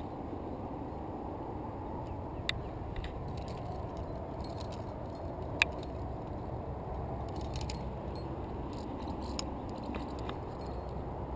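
Climbing hardware on a lead climber's harness (carabiners and cams) clinking and scraping against granite as the climber moves up the crack, with a few scattered metallic clicks, the sharpest about two and a half and five and a half seconds in, over a steady low rumble.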